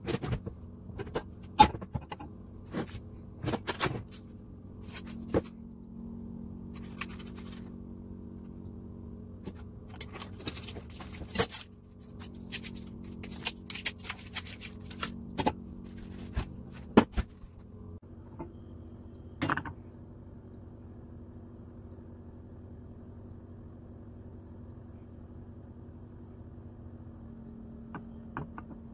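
Plastic spoon knocking and scraping against a glass mixing bowl of flour: a run of sharp, irregular taps and clicks over a steady low hum. The taps stop about two-thirds of the way through, leaving only the hum.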